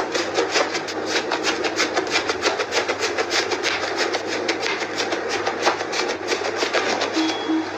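Thick fluffy slime pressed and poked with fingertips, giving a steady run of quick crackling clicks, several a second.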